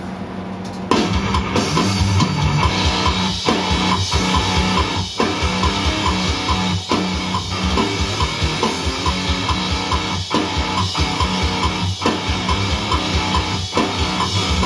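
Playback of a recorded death metal track: distorted electric guitar riffing over drums with a fast bass drum pulse. It starts about a second in.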